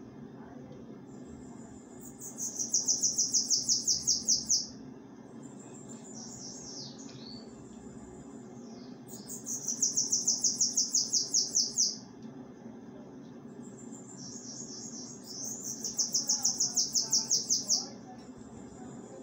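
A bananaquit (sibite) singing three times. Each song swells into a rapid, high, buzzy run of repeated notes lasting about two seconds, and there are a few softer thin calls between the songs.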